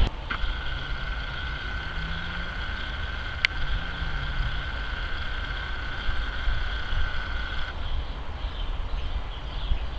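Steady low rumble of a jet airliner cruising high overhead.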